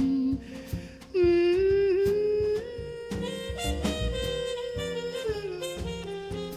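Background music: an instrumental jazz passage led by saxophone over a steady beat.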